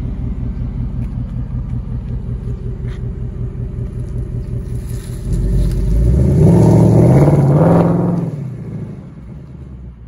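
2023 Ford Mustang GT's 5.0-litre V8 running at low speed with a steady, even pulse as the car rolls away. About five seconds in it accelerates hard, the revs climbing loudly for a few seconds, then the sound fades as the car drives off into the distance.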